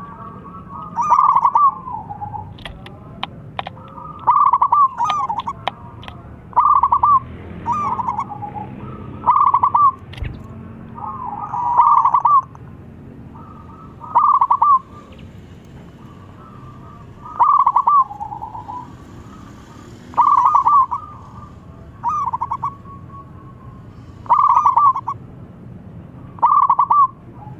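Young zebra dove (perkutut) singing its thick-voiced song over and over: short rolling phrases of coos, one every two seconds or so, about a dozen in all.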